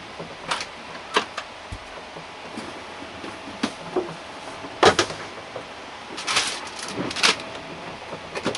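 Knocks and clatters of things being handled in a boat's galley: cupboard doors and food containers. The sharpest knock comes about five seconds in, with a quick run of clatters soon after.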